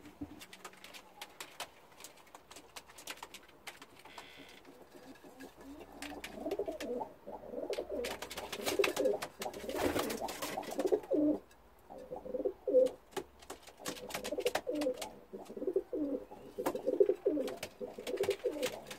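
Domestic pigeons cooing, with low calls repeating over and over from about six seconds in. Scattered clicks and taps run underneath, and a brief rush of noise comes about ten seconds in.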